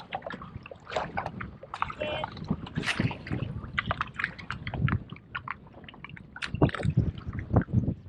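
Shallow bay water splashing and sloshing in short, irregular strokes, as from an angler wading or small waves slapping around him.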